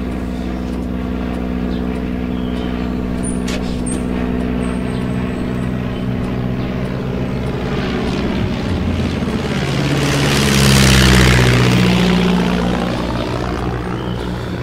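Propeller airplane's piston engine droning steadily, then swelling to its loudest as the plane passes close by about ten to eleven seconds in, its pitch shifting as it goes past, before easing off.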